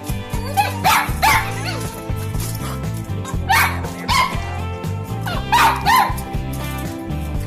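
Labrador Retriever puppies yipping and barking in short, sharp calls that come in small clusters about a second in, around three and a half to four seconds, and near six seconds, over background music.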